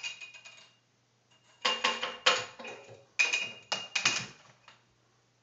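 A plastic juice bottle lid clattering and skittering on a wooden floor as a cat bats it around. It comes in three bursts of rapid taps, some with a short ringing note.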